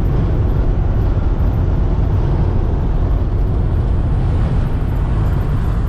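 Steady low rumble of a 2005 Mercedes Sprinter diesel van cruising at highway speed, engine and road noise heard from inside the cab.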